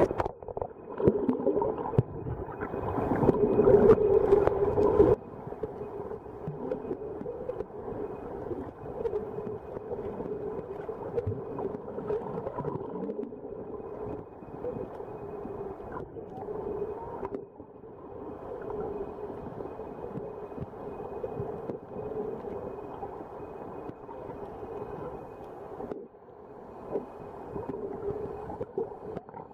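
Muffled underwater ambience picked up by a waterproof compact camera held below the surface: a steady low hum with water sloshing against the housing. It is louder and rougher for about the first five seconds, then settles to an even level.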